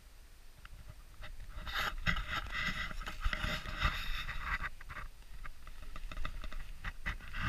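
Footsteps crunching on snow-covered lake ice, loudest for about three seconds starting near the two-second mark, followed by lighter crackles and clicks, over a low rumble of wind on the microphone.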